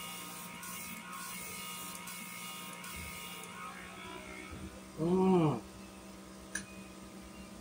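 A small machine runs with a steady hum and a run of short hissing spells that stop about three seconds in. About five seconds in a brief voiced sound rises and falls in pitch, the loudest moment, and a single click follows near the end.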